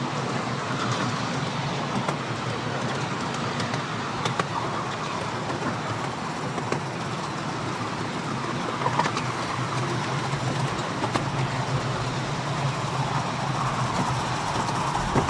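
Miniature-railway steam locomotive, a scale replica of a Merchant Navy class Pacific, running toward and past with a long passenger train: a steady running noise with a few sharp clicks scattered through it.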